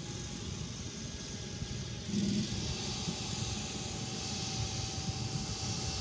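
Ride-on greens mower running steadily, a constant engine hum with a thin steady whine over it, getting a little louder about two seconds in.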